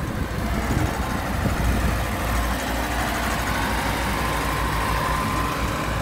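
Diesel engine of a Case Vibromax padfoot soil compactor running steadily.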